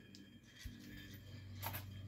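Worn-out ceiling fan running: a steady motor hum that grows stronger after a low knock, with scattered clicks and a brief louder rattle near the end.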